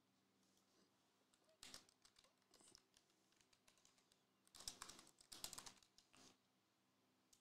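Near silence broken by a few faint clicks and short rustles, most of them bunched in the second half.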